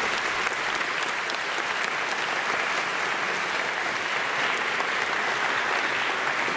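A large audience applauding, dense and even clapping held at a steady level throughout.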